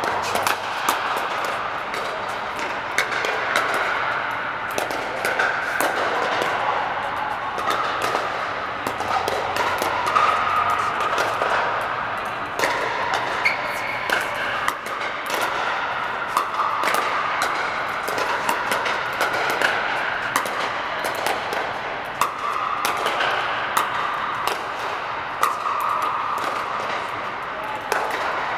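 Pickleball paddles striking plastic balls: frequent sharp pops at an irregular pace from rallies on several courts at once, inside a large air-supported sports dome, over a steady din.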